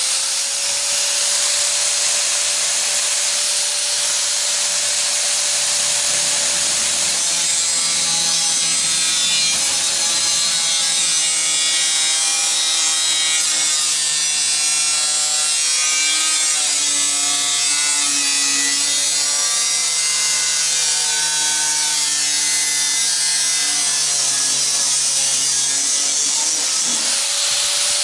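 Electric power tool running steadily under load, with a motor whine that sags slightly now and then beneath a harsh grinding hiss.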